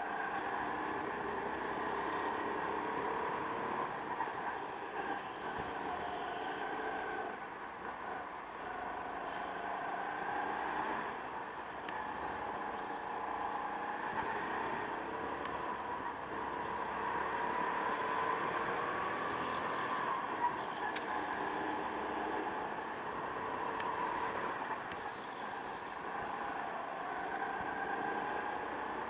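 Go-kart engine heard onboard from the kart while lapping, its pitch repeatedly rising under acceleration and falling off as the driver lifts for corners.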